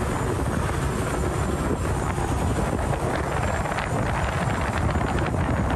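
Saen Saep canal passenger boat underway, its engine running in a steady loud rumble, with wind on the microphone.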